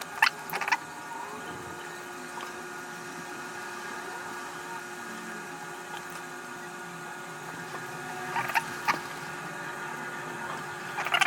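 A few sharp clicks and taps of small tools and plastic parts being handled, a pair just after the start and another pair about eight and a half seconds in, over a steady low background hum.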